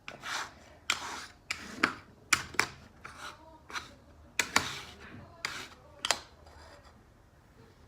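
A utensil scraping and knocking against a container while mixing slime: a quick, uneven run of scrapes and clicks that stops about six seconds in.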